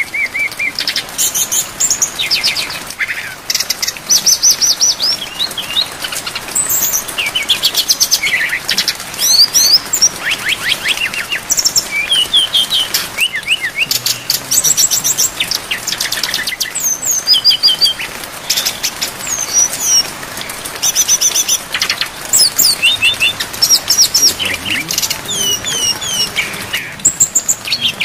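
Brown-chested jungle flycatcher (sikatan rimba dada coklat) singing a fast, varied song of high whistles and quick trills, phrase after phrase with barely a pause, over a steady hiss of falling rain.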